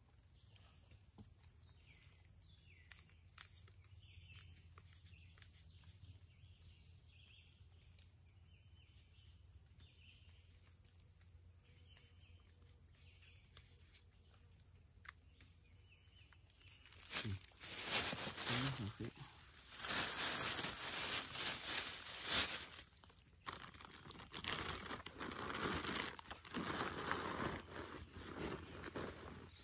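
Steady high-pitched chirring of insects such as crickets or cicadas. From a little past halfway, loud irregular rustling and handling noises come in over it.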